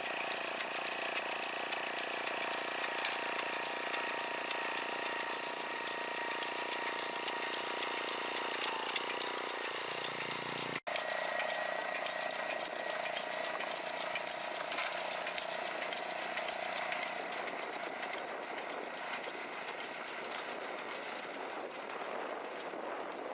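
Machinery running steadily with a whine and rapid ticking, broken by an abrupt cut about eleven seconds in, after which a similar machine sound with a different whine carries on.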